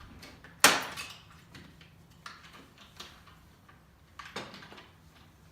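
Hand tools being handled on a workbench: one sharp knock about half a second in, then a few fainter clicks and taps spread out after it.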